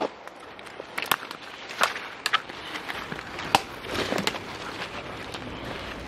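Footsteps crunching through dry leaf litter on a forest floor, with irregular sharp snaps of twigs and sticks underfoot.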